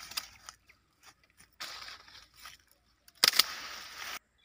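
Hand pruning shears cutting guava branches: sharp clicks of the blades, then the rustle of leafy cut branches being pulled out of the tree. The loudest sound is a sharp snap about three seconds in, followed by about a second of rustling leaves.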